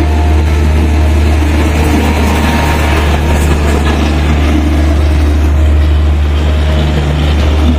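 The diesel generator sets of an Indian Railways LHB brake-and-generator power car are running steadily. The sound is a loud, even engine drone with a deep hum, and it does not change.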